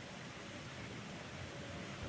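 Faint, steady background hiss with an uneven low rumble underneath.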